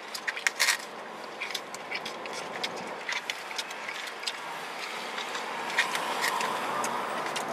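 Plastic forks scraping and tapping in takeout food containers: a string of short, irregular clicks and scrapes over a steady low hiss.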